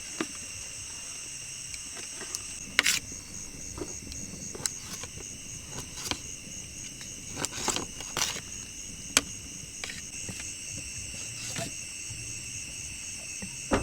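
Steady high-pitched chirring of crickets, with scattered light knocks and clicks throughout, the loudest a little under 3 seconds in and again near the end.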